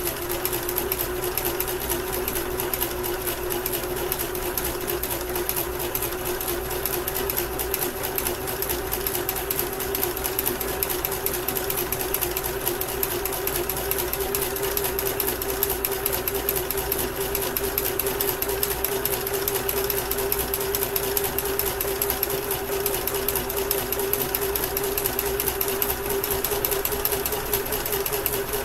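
Basic Kenmore electric sewing machine running steadily, sewing a zigzag stitch along the fabric edge.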